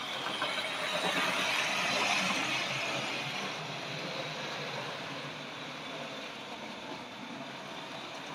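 Tri-ang Railways OO model steam locomotive from set RS.37 running along the track with its coaches: a steady mechanical rolling noise from motor and wheels, loudest from about one to three seconds in as the train passes close by, then easing off.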